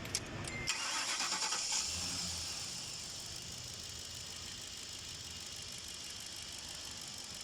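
Ford Expedition engine being started: two sharp clicks, a short rattling crank, then the engine running steadily with a fine rapid ticking.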